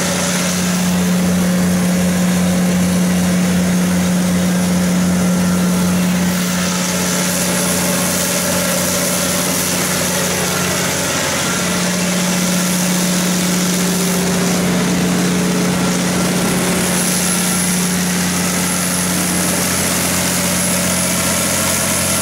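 Cummins NT855-G6 six-cylinder diesel engine of a 275 kW generator set running steadily at constant governed speed, with no muffler on the exhaust.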